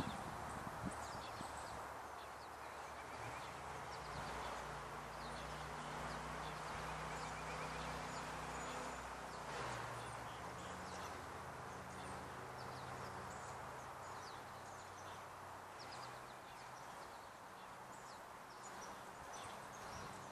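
Outdoor ambience of many short, high bird chirps scattered throughout over a steady background hiss, with a faint low hum underneath.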